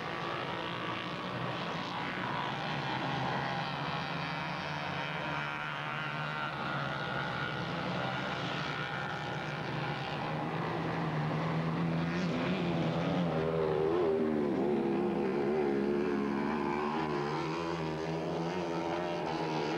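Dirt bike engines running and revving off and on, their pitch wavering up and down.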